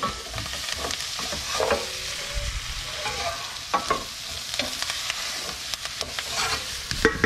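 Sliced onions, peppers, garlic and herbs sizzling gently in a stainless steel pan while a wooden spoon stirs and scrapes through them, with scattered knocks of the spoon against the pan. The garlic is cooking gently until fragrant.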